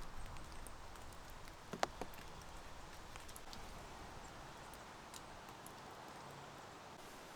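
Light rain falling steadily with scattered small drips and ticks, and one sharp knock about two seconds in.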